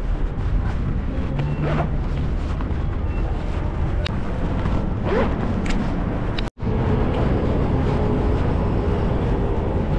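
City street traffic noise with wind buffeting the microphone; the sound cuts out for an instant about six and a half seconds in.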